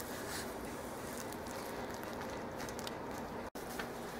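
Low, steady room noise with a few faint light clicks. It drops out for an instant about three and a half seconds in.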